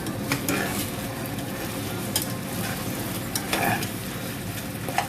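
Chicken pieces sizzling as they are sautéed in a pan, stirred with a utensil that scrapes and clicks against the pan a few times.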